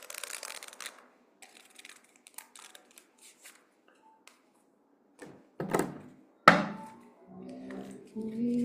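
Tarot cards being handled: a soft sliding rustle as cards are drawn from a deck, a few light clicks, then a sharp thunk about six and a half seconds in as a deck or card is put down on the table.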